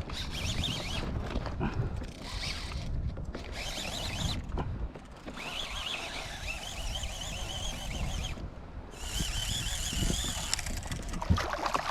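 A fishing reel ratcheting in stretches of a second or two as a hooked fish is reeled in, with a high wavering rasp, over low wind and water rumble.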